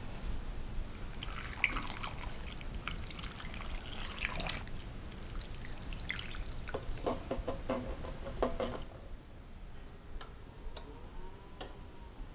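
Water poured from a plastic bottle into a cast-iron skillet of chicken and vegetables, splashing and trickling, stopping about nine seconds in. A few faint clicks follow.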